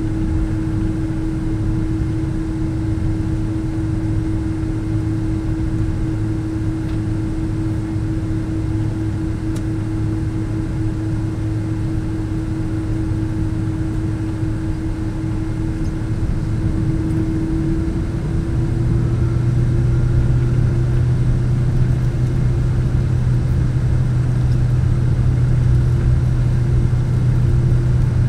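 Cabin noise inside a Boeing 777-200 taxiing after landing: a steady engine drone with a low hum. About two-thirds of the way through, the hum steps up in pitch and grows a little louder.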